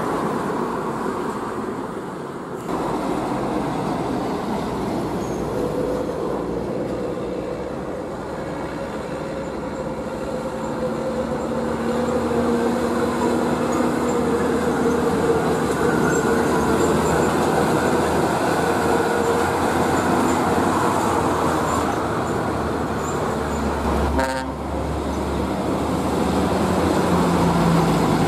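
Heavy diesel trucks driving past one after another, engines running steadily. The sound changes abruptly about two and a half seconds in and again near the end.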